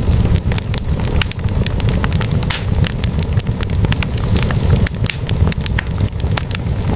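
Wood fire of burning logs in a fireplace crackling, with many irregular sharp pops and snaps over a steady low rumble.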